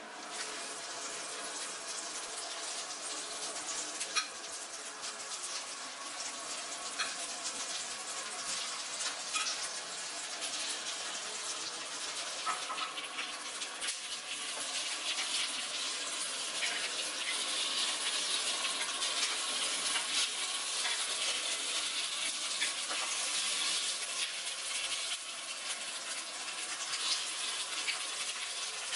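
Butter sizzling in a small cast-iron pan, then whole pollock roe sacs frying in it: a steady crackling sizzle with scattered pops, growing a little louder about halfway through.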